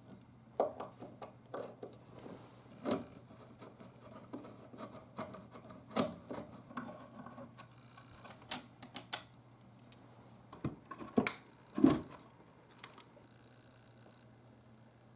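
Irregular clicks, knocks and scrapes of tools and metal parts being handled while a Marshall JCM900 guitar amplifier is taken apart. The loudest knocks come about eleven to twelve seconds in, and the handling stops about thirteen seconds in. A faint steady low hum runs underneath.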